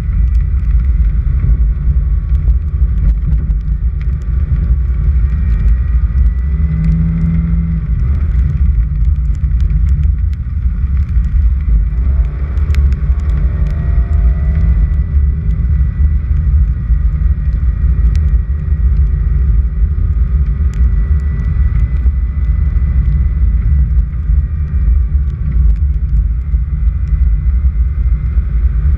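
Car driving along an unpaved dirt road: a loud, steady low rumble of engine and tyres on the dirt, with scattered small ticks.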